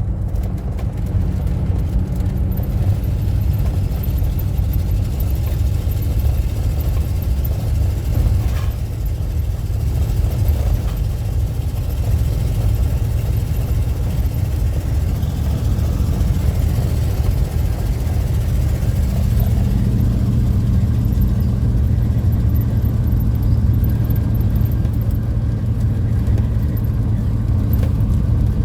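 Car driving along a road: a steady low rumble of engine and tyres, with the engine note rising slightly about twenty seconds in.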